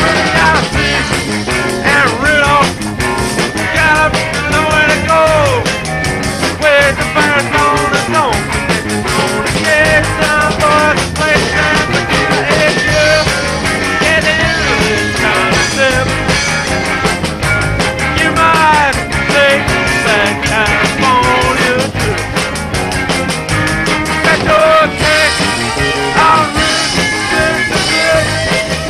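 Rock band playing live, recorded on cassette tape: electric guitars, bass and drums, with a lead line of bending notes over the top.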